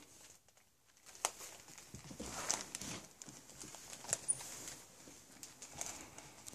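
Faint handling noise: rustling of a coat and studio headphones being picked up and pulled on, with a few sharp clicks, the loudest about a second in and about four seconds in.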